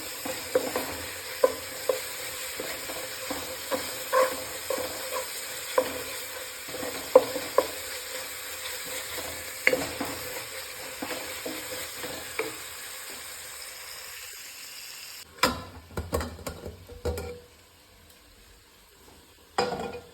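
Sliced onions frying in a pan, sizzling steadily while they are stirred, the spatula tapping and scraping against the pan. About fifteen seconds in the sizzle cuts off and a few loud clattering knocks follow, with one more near the end.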